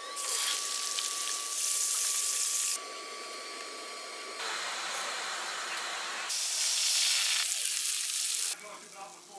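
Trout and butter sizzling in hot oil in a frying pan. The sizzle comes in several short edited stretches that start and stop abruptly at different loudness, with a faint steady high tone under the first half.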